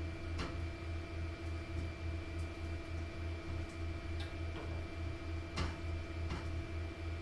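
A steady electrical hum with a low, throbbing drone, with a few light clicks and knocks of kitchen items being handled. The clearest knock comes a little past halfway.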